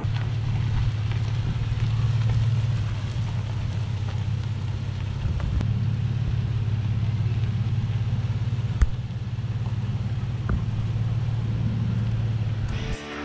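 A vehicle running with a steady low rumble that holds an even level throughout, with a few faint ticks.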